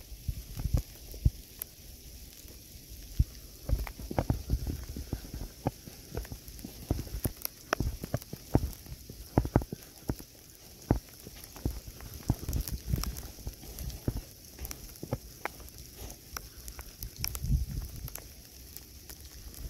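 Outdoor ambience of irregular crackling and sharp ticks with scattered low thumps over a steady hiss.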